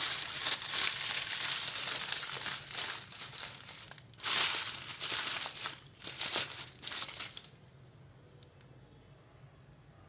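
Aluminium foil crinkling and crumpling as hands fold it around a bundle of green leaves, in several bouts with short breaks, stopping about three-quarters of the way through.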